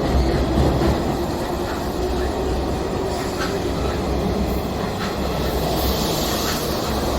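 An electric train running past close by: a loud, steady rumble of wheels on rail, with a few scattered clicks as wheels cross rail joints.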